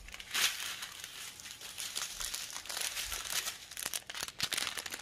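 Small clear plastic bags of resin diamond-painting drills crinkling as they are handled and shuffled, a continuous crackle of plastic with many small sharp clicks.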